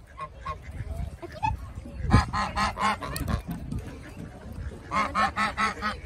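Domestic geese honking in two quick runs of repeated calls, about two seconds in and again about five seconds in, with a single thump near the start of the first run.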